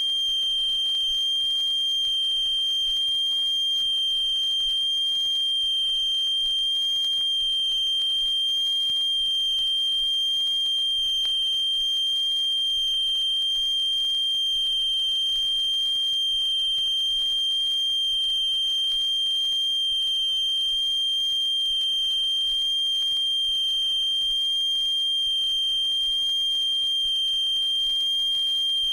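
A steady test tone of about 3 kHz with faint overtones, played back from a vinyl test record; it is the wow-and-flutter (speed fluctuation) measurement band, where any wavering in its pitch shows uneven turntable speed.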